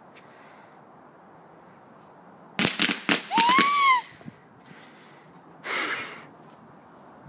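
Fireworks going off: a quick cluster of cracks a bit over two and a half seconds in, a short whine that rises then falls among them, and a hissing burst near six seconds.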